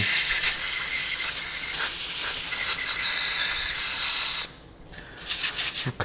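Can of compressed air duster spraying through its thin straw to blow out small parts: a long steady hiss that stops about four and a half seconds in, then a few short puffs near the end.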